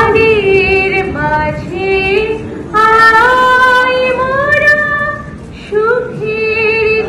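A woman singing solo and unaccompanied into a microphone, holding long, gliding notes with short breaks between phrases.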